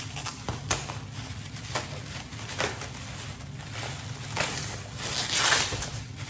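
Plastic bubble wrap being cut with scissors and pulled apart by hand, crinkling and crackling in irregular snips. It grows louder near the end as the wrap is pulled open.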